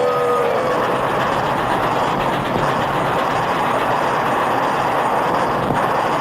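The tail of a train whistle chord, several notes at once, cuts off about half a second in. Steady rushing noise of a running train follows.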